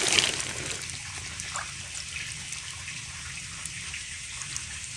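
Shallow swamp water stirred by hands at the surface, louder in the first half-second, then settling to a faint steady watery hiss with a few small ticks.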